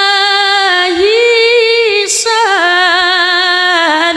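A woman singing a sholawat (devotional song praising the Prophet) solo and unaccompanied, amplified through a microphone and PA. Her long held notes bend and waver, in two phrases with a short break about two seconds in.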